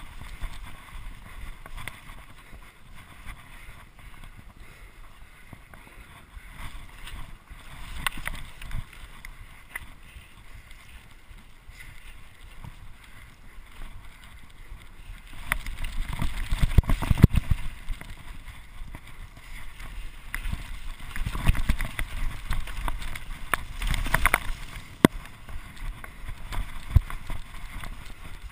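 Mountain bike descending a wet dirt trail: wind rushing over the microphone, tyres on dirt and the bike rattling and knocking over bumps, rougher and louder for several seconds from about halfway through.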